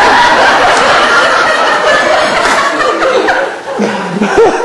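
A crowd laughing and chuckling together, many voices overlapping, with one louder voice rising above the rest near the end.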